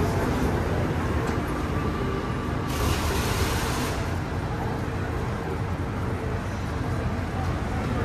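Singapore MRT train stopped at a platform: a steady low rumble, with a short hiss about three seconds in.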